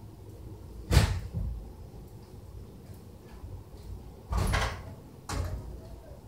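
Three knocks: a sharp, loud one about a second in, then two duller thumps about three and four seconds later.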